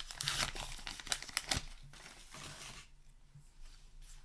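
A paper booster-pack wrapper being torn open and crinkled: a dense run of crackling and rustling for about three seconds, then only faint handling.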